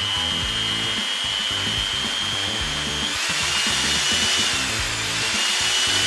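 Electric motor of an Oxone OX-833S mixer running with a steady high whine and a rushing noise. About three seconds in its pitch shifts and the noise grows, as the turbo button is pressed. Background music plays underneath.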